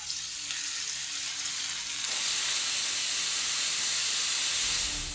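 Salmon steak sizzling in hot oil in a frying pan: a sudden hiss as it is laid in, growing louder about two seconds in and holding steady, then stopping just before the end.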